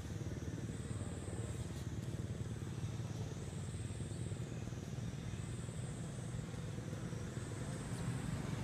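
Steady low outdoor rumble, with a faint high-pitched drone that swells and fades several times.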